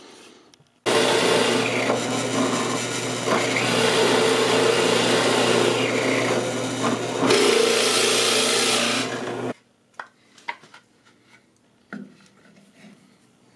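Drill press running with its bit cutting into a block of light wood, a steady motor hum under the grinding of the cut; it starts suddenly about a second in and stops suddenly after about eight and a half seconds. A few light clicks and knocks follow.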